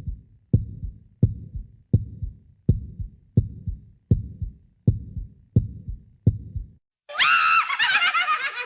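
Heartbeat sound effect: deep, steady thumps about three every two seconds that stop after about seven seconds. Then a loud, high, wavering cry comes in near the end.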